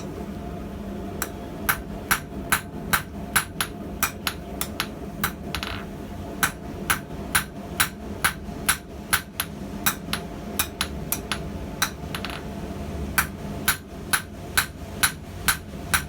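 Hand hammer striking hot steel on an anvil while forging a blacksmith tong half: a run of sharp, ringing blows about two to three a second, pausing briefly about six and twelve seconds in, over a steady low hum.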